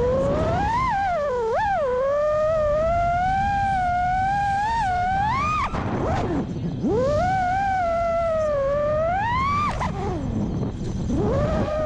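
FPV quadcopter's Brotherhobby Avenger 2207.5 2350kv motors spinning HQProp J37 props, whining with a pitch that rises and falls continuously with the throttle. Twice, about six and ten and a half seconds in, the whine drops steeply as the throttle is chopped, then climbs back up.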